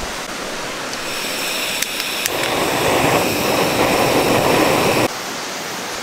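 Mountain stream rushing steadily. It swells louder and fuller for a few seconds in the middle, then drops back suddenly near the end.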